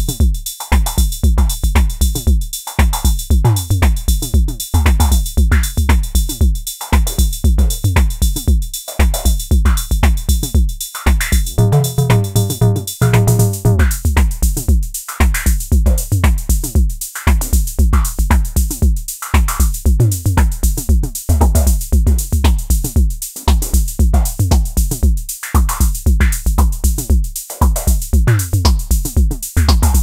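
Mode Machines ADX-1 analog drum machine playing a looping pattern: deep bass drum hits under snare and metallic hi-hat percussion. A thin steady high tone drops out a little before halfway, as a brief pitched synth phrase sounds.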